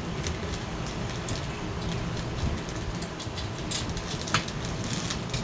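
Scattered light clicks and taps, with one sharper knock about four seconds in, as a blade is handled and fitted onto a Tara ceiling fan, over a steady low rumble of background noise.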